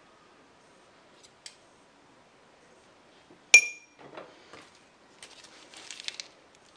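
A metal spoon clinks once against a glass jam jar about three and a half seconds in, with a short bright ring, followed by a plastic piping bag rustling as it is picked up.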